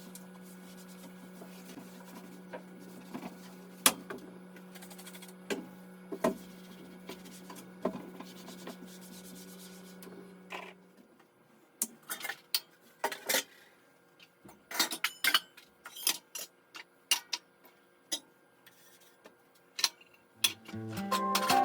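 Dishes and other kitchen items clattering as they are handled and set down: scattered sharp clicks and knocks, more frequent in the second half. A steady low hum runs under them and stops about halfway through.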